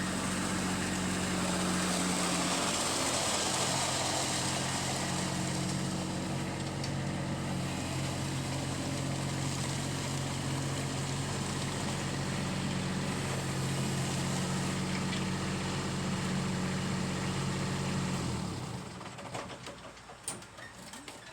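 Kubota B2601 compact tractor's three-cylinder diesel engine running steadily, then shut off about eighteen seconds in, after which a few light clicks are heard.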